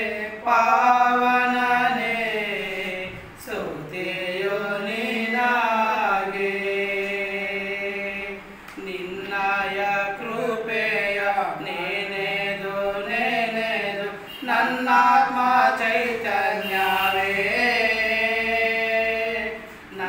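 Two men singing a Kannada hymn together a cappella, with no instruments, in long held lines broken by short pauses for breath about every five seconds.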